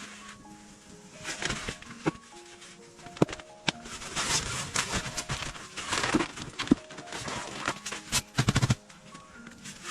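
Soft background music of sparse, single held notes, over intermittent rustling and handling noises, with a quick run of louder knocks near the end.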